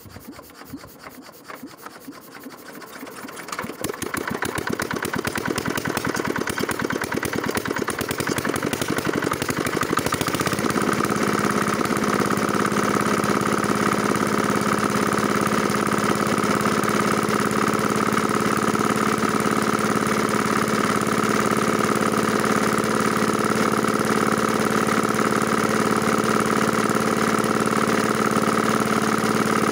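Small mini diesel engine driving a water pump, catching about four seconds in and running with a fast, even knocking beat that quickens; around ten seconds in it settles at a steady running speed with a constant hum as the pump delivers water.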